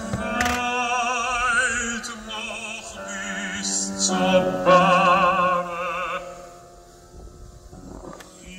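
Operatic singing with wide vibrato over a steady low accompanying note, in long sung phrases that break off into a lull near the end.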